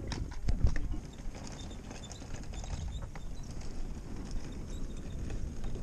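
Handling noise from a cardboard box full of plastic toys: a few sharp knocks and clatters about half a second in as it is picked up, then a steady rustle with small clicks as the box jostles while being carried.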